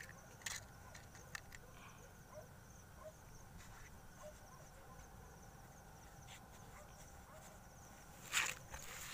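Faint, steady chirring of night insects, with a few small scattered clicks. Near the end comes a brief, louder rustle of a hand moving over cloth.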